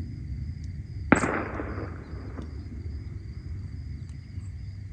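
A single sharp pop about a second in, fading out over about a second, over a steady low rumble and a faint, steady high-pitched buzz.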